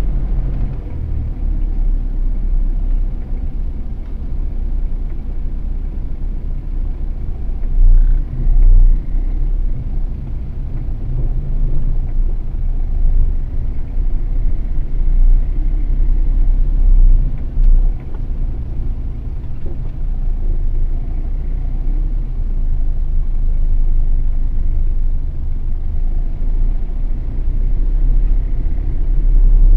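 Steady low rumble of a car driving along a town street, broken by a few brief, louder low thumps.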